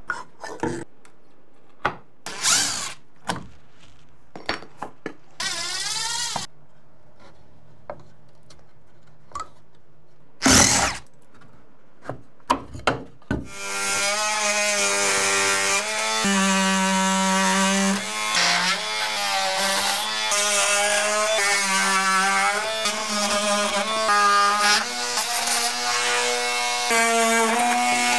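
Short bursts of a cordless drill-driver backing out screws, with clicks and knocks of handling, one burst winding up in pitch. About halfway in, a cordless oscillating multi-tool starts buzzing steadily as it cuts wooden door shims flush with the framing, its pitch shifting as the blade bites.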